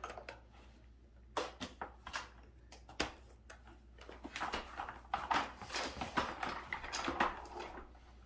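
A plastic baby walker being folded flat by hand: a few sharp knocks and clicks of its plastic frame, then a longer stretch of clattering and rustling as the legs and seat are handled.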